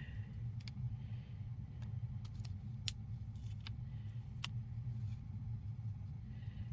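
Steady low hum with a few light clicks and soft rustles of paper sticker sheets being handled and peeled.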